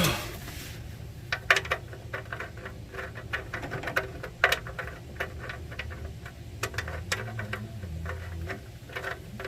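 Irregular light clicks and taps of an oil pan drain plug being fiddled into the pan's threads by hand, trying to start it without cross-threading.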